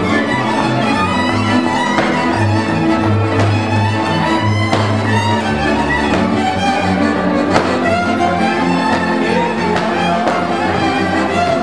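Transylvanian Hungarian village string band playing dance music: several fiddles bowing the melody over kontra chords and a double bass line.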